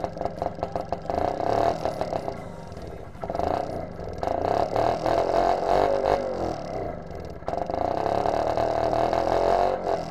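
Homemade go-kart's small engine idling with a rapid, even putter, then revved up and down several times from about three seconds in, settling lower near the end.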